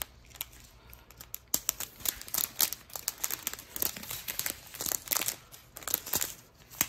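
Small clear plastic bags of diamond painting drills being handled and sorted, crinkling in irregular crackles throughout.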